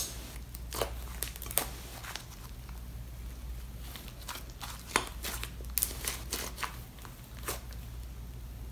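Thick clay-mixed slime being kneaded, folded and squeezed by hand, giving scattered sharp pops and crackles, the loudest a snap right at the start.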